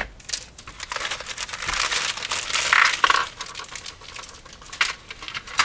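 Clear plastic kit bag crinkling and rustling as it is handled and a plastic sprue is slid out of it, busiest in the first three seconds, then a few light clicks.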